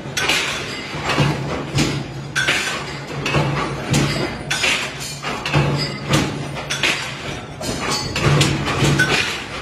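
Mechanical power press punching sprocket blanks from steel plate: irregular heavy metal clanks and thumps, with punched steel pieces clinking.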